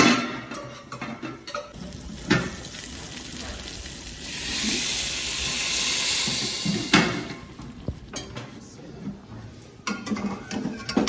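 Water poured into a hot aluminium pot of vermicelli fried in ghee, hissing and sizzling for about three seconds midway. Clanks of metal pots, lid and ladle come at the start, a couple of seconds in, and as the pouring ends.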